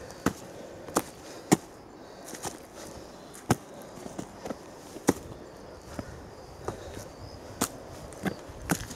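Footsteps of a walker in white rubber boots on a forest trail strewn with dry leaves, dirt and rocks: irregular sharp steps, roughly one a second.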